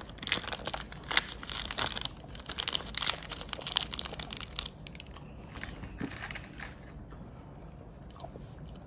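Candy-bar wrapper being crinkled and handled, dense crackling for the first four and a half seconds, then sparser crackles that die away.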